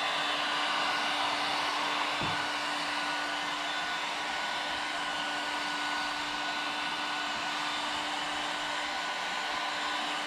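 Electric heat gun running steadily, a constant blowing rush with a steady hum underneath, as it is swept over freshly applied vinyl wrap to post-heat it.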